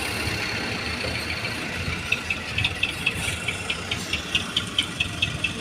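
Dump truck's diesel engine running with a steady low rumble; from about two seconds in, a rapid series of sharp ticks, about five a second, rises over it.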